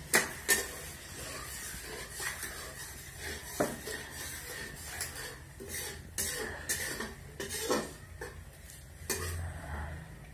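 Kitchen utensils and dishes clinking and scraping, a run of irregular sharp knocks with the two loudest right at the start.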